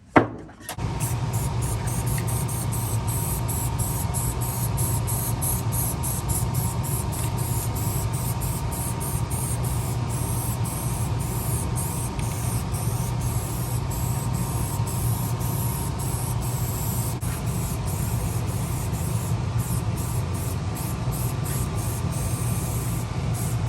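Aerosol spray paint can spraying in a long, steady hiss, after a sharp click at the very start.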